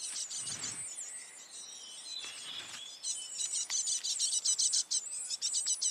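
Paradise flycatcher nestlings begging at the nest: many rapid, high, thin chirps, with a few clearer repeated notes in the middle, as a parent brings food.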